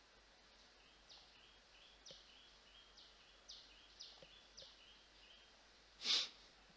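Faint bird chirping: a short, high chirp phrase repeated about once a second, with a few soft mouse clicks in between. About six seconds in comes one louder short rush of noise.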